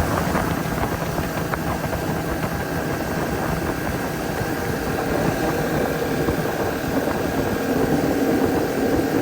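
The 135 outboard motor on a Powercat boat running steadily at speed, with a level drone and a faint steady pitch under the rush of wind and water.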